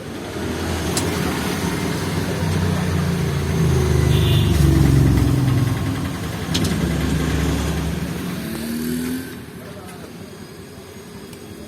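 A motor vehicle passing by on the road. It grows louder to a peak about five seconds in, then fades away by about nine seconds.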